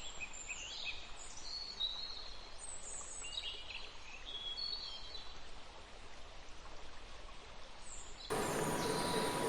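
Small birds singing in short chirping phrases over a steady background hiss, mostly in the first half. Near the end the sound cuts abruptly to a louder, noisier recording with a steady hum.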